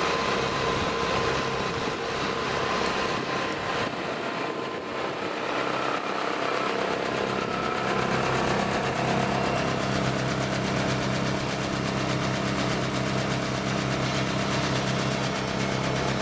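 Tractor engine running at a steady speed, driving a Jansen BX-62RS wood chipper mounted on its three-point hitch. A continuous machine hum with several steady tones, growing fuller about seven seconds in.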